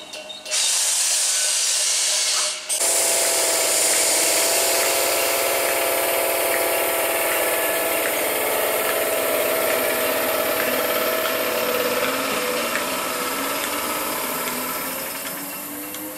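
ScotRail Class 320 electric multiple unit running at the platform, with a steady whine over a broad hiss of rail and air noise, fading over the last few seconds. A short stretch of hiss cuts off abruptly about three seconds in.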